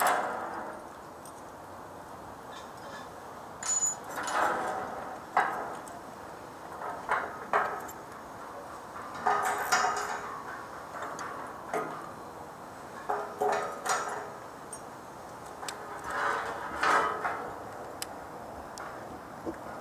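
Irregular metallic clanks and clattering from structural-steel erection: steel members, hooks and hoist rigging knocking together. A sharp knock comes at the start, then about a dozen shorter clanks spread through, over a steady low hiss.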